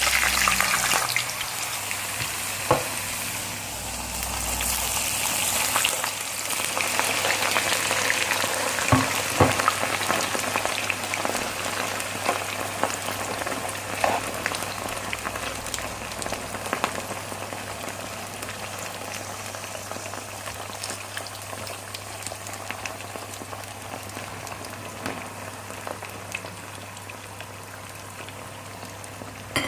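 Diced potatoes sizzling in hot groundnut oil just after they go into the pan: a dense hiss that is loudest in the first ten seconds or so and slowly dies down. A few sharp knocks stand out, two of them close together about nine seconds in.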